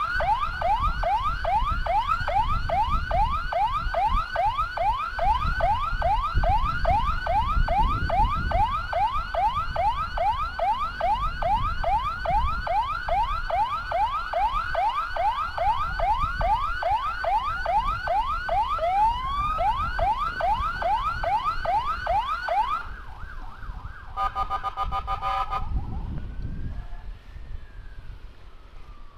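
Electronic siren on a fast rising yelp, about three sweeps a second, over low road rumble. Near the end it cuts off, followed by a short blast of a steady horn-like tone and then a slow rising-and-falling wail.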